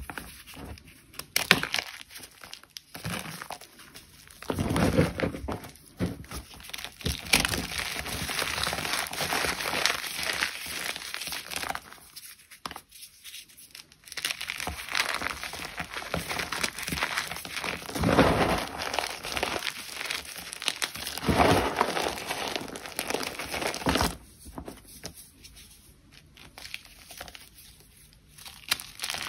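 Gym chalk being crushed and crumbled, a dense crisp crunching and crackling that comes in loud spells with short pauses between them and eases off over the last few seconds.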